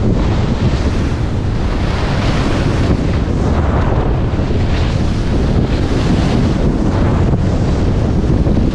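Wind rumbling on a GoPro HERO9's microphone while moving fast downhill on a ski run. A rising and falling hiss of edges scraping over packed snow comes with each turn, about three times.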